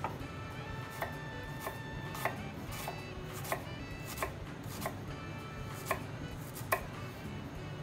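A knife cutting through a small piece of food onto a plastic cutting board: about ten crisp taps, roughly one every two-thirds of a second, a little uneven.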